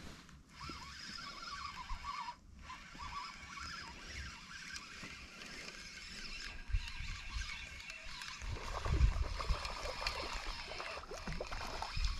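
Spinning reel being cranked as a hooked walleye is brought in to the bank, with water sloshing and a louder low rumble about nine seconds in.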